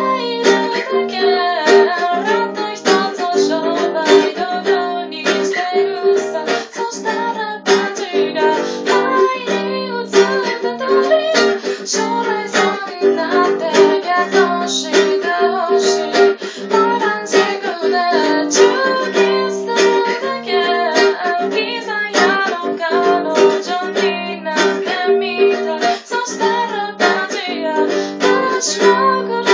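A woman singing while strumming a small acoustic guitar, a steady solo voice-and-guitar performance.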